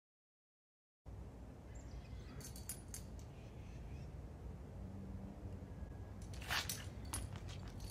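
Low outdoor rumble starting about a second in, with a few faint clicks and light metallic clinks and scuffs from a long guandao-style polearm being handled and feet shifting on pavement; a brief cluster of sharper clinks and scuffs comes near the end.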